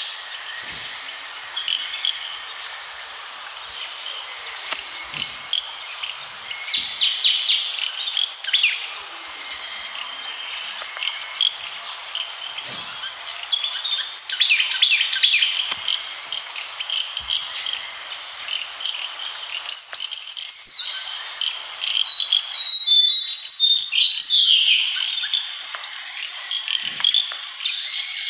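Wild birds calling and singing in a field recording of forest ambience, over a steady background hiss. Several different whistles, chirps and short trills overlap. About twenty seconds in a loud whistle slides down in pitch, and a burst of rapid trilled notes follows soon after.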